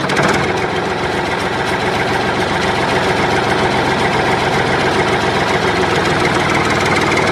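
A motor running steadily at an even pitch, with a fast, continuous rattle.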